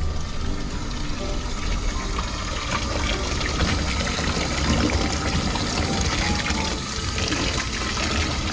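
Tap water running hard into a steel bowl of cooked soba noodles, splashing as they are rinsed by hand under the stream.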